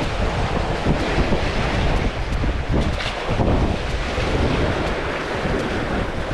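Wind buffeting the microphone, a steady rushing noise with a low rumble, mixed with sea waves washing against a concrete breakwater.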